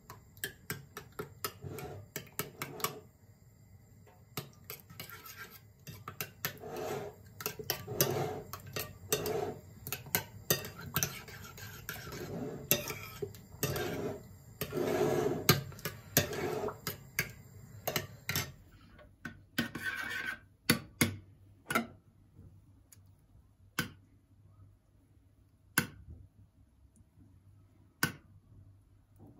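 Metal spoon stirring thick yogurt in a ceramic bowl: quick clinks and wet scraping against the bowl, over and over. About two-thirds of the way through the stirring stops, leaving only a few single sharp clinks several seconds apart.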